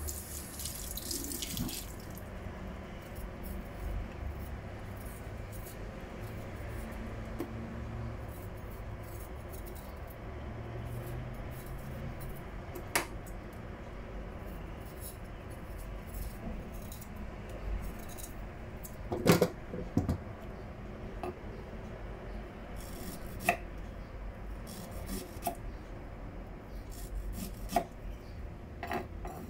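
Water running from a kitchen tap into a steel sink, hissing brighter in the first couple of seconds, with scattered sharp clicks of a knife against a wooden cutting board and ginger as the ginger is peeled and sliced.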